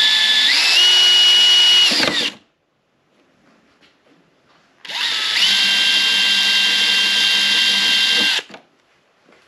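Power drill with a 1/4-inch bit drilling through a motorcycle's side fender panel. Two runs of a steady motor whine, the first about two seconds long and the second about three and a half seconds, each stepping up in pitch just after it starts.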